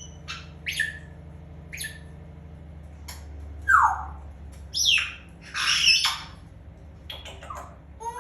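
African grey parrot calling in a string of separate sounds: short high chirps and whistles with falling tails, a falling whistle about four seconds in, then louder harsh squawks about five and six seconds in.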